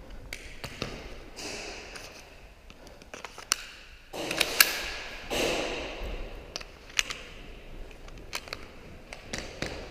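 Scattered sharp clicks and taps of airsoft gunfire and BB hits in an echoing concrete hall, with two louder swishing noises about four and five seconds in.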